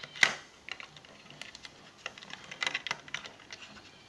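Sharp metal and plastic clicks of an LGA1151 CPU socket being closed by hand: the load plate with its plastic protective cover pressed down and the retention lever handled. A handful of irregular clicks, the loudest about a quarter second in.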